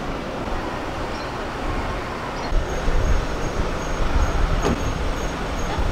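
Busy airport arrivals pick-up curb: a steady rumble of idling and passing cars and people moving with luggage, with a faint high beeping repeating about twice a second from about halfway in and one sharp click near the end.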